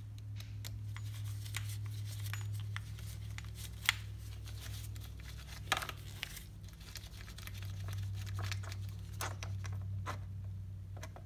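Clicks, light rattles and scraping of small plastic and metal parts being handled as the carburetor is worked off an Echo SRM-225 string trimmer, with two sharper clicks about 4 and 6 seconds in. A steady low hum runs underneath.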